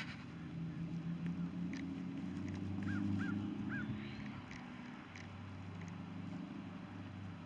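Waterfowl calling: short rising-and-falling calls, three in quick succession about three seconds in and a few fainter ones scattered around them. Under them runs a steady low hum.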